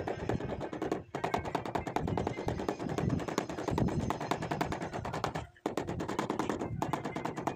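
White rubber mallet tapping rapidly and repeatedly on a ceramic floor tile, bedding it into fresh tile adhesive. The tapping stops briefly about a second in and again a little past the middle.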